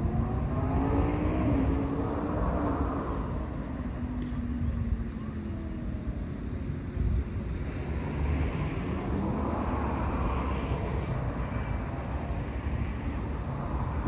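Road traffic going past: a steady low rumble, with engine notes that slide down in pitch as vehicles pass. The noise swells and fades several times as cars go by.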